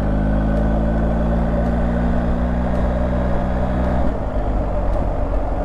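BMW R 1250 GS Adventure's boxer-twin engine running steadily under way, with wind noise. About four seconds in, the engine note changes.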